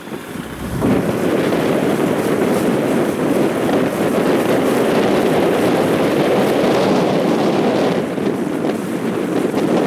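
A small open motorboat under way: wind buffets the microphone over the steady rush of the motor and water along the hull. It drops for a moment at the start, then runs on evenly.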